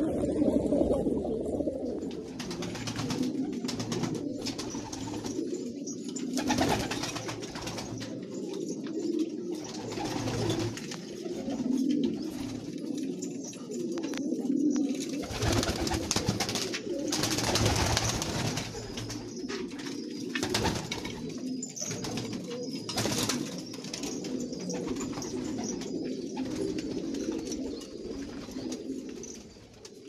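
Domestic homing pigeons cooing continuously, several birds at once in low, wavering coos, with a few brief louder rustles now and then.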